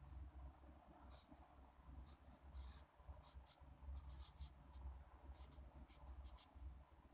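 Faint pen scratching on paper: a series of short, irregular scratchy strokes, as in writing out numbers, over a low steady hum.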